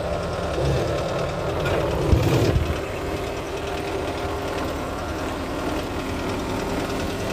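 Furukawa excavator's diesel engine idling steadily, heard close to the undercarriage, with a brief louder rustling noise about two seconds in.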